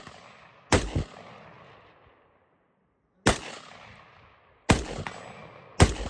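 Four single rifle shots from an AR-15, spaced irregularly about one to two and a half seconds apart, each followed by a rolling echo.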